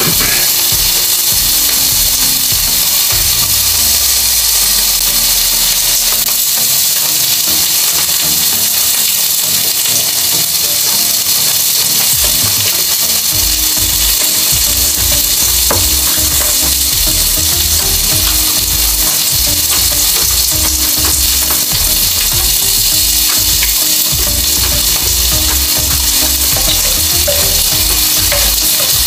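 A steady, loud sizzling hiss from pork slices cooking on an electric grill plate. Close-miked chewing and spoon scrapes sound under it.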